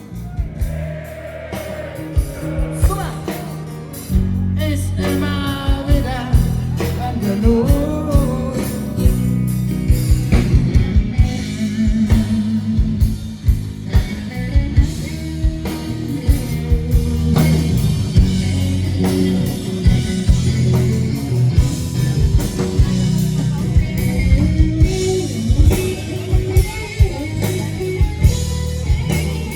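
Live rock band playing: a singer over guitar and drums, with steady drum hits.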